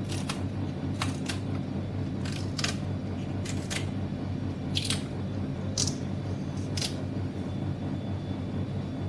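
Kitchen scissors snipping green okra (bhindi) into small rounds: about ten crisp snips, often in quick pairs, stopping about seven seconds in. A steady low hum runs underneath.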